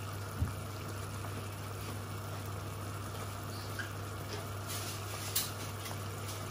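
Tomato sauce simmering in a pot on a gas stove: a steady soft bubbling hiss over a steady low hum, with a couple of faint clicks.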